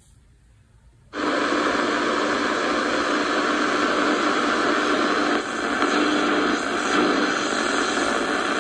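Sony ICF-F12S portable radio switched on about a second in, its speaker giving a sudden, steady, loud hiss of shortwave static with no station tuned in, while the dial is turned.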